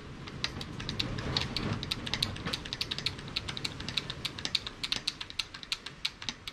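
Hand-operated hydraulic crimper with hexagonal dies being pumped by its lever handle, giving a rapid, uneven run of sharp clicks, several a second, as the ram closes the dies.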